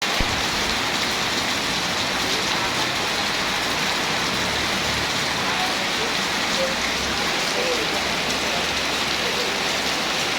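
Heavy rain pouring down steadily, a dense, even hiss of rain hitting the ground and surfaces.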